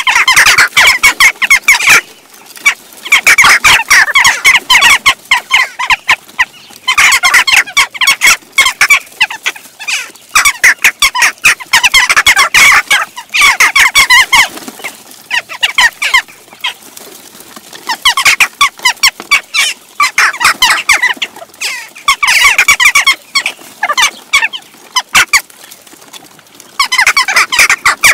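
A flock of western jackdaws squabbling over food, many short, sharp calls overlapping in loud bursts of a few seconds each, separated by brief lulls.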